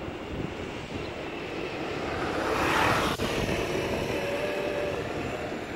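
A motor vehicle passing by, its noise building to a peak about three seconds in and then fading, over a steady rumble of wind on the microphone from riding a bicycle.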